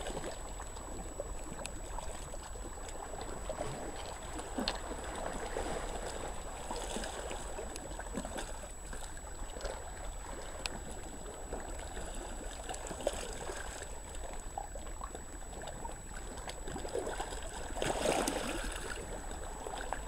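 Small sea waves lapping and trickling over a pebble shore: a steady, soft wash of water.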